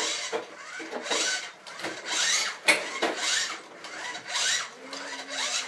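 Plastic toy truck pushed back and forth, its wheels and gears rasping about once a second, with one sharp click near the middle.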